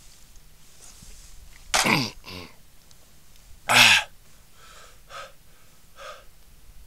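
A person coughing: two loud coughs about two seconds apart, each falling in pitch with a smaller catch just after, then three short, quieter exhalations.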